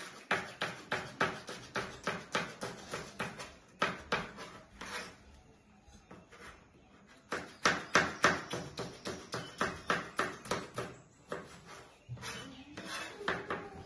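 Kitchen knife chopping vegetables on a cutting board: quick, regular chops at about three a second. The chopping pauses about five seconds in, then resumes.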